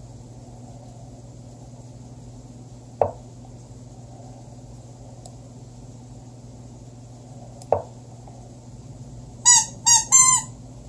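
Two short woody clicks from an online chess site's move sound, about 3 and 8 seconds in. Near the end come three quick, loud, high squeaks from a vinyl squeeze-toy gnome. A faint steady hum from the computer runs underneath.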